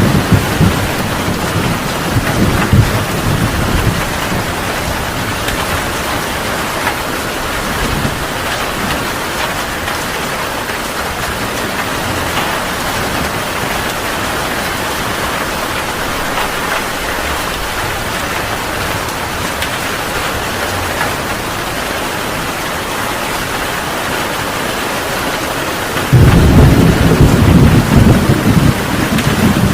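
Heavy rain falls steadily in a thunderstorm. Thunder rumbles through the first few seconds and fades, then a loud thunderclap breaks in suddenly near the end.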